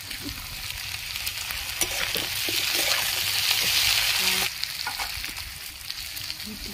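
Potatoes and onions sizzling in hot oil in a pan while being stirred, with a spatula clicking and scraping against the pan. The sizzle swells, then drops abruptly about four and a half seconds in.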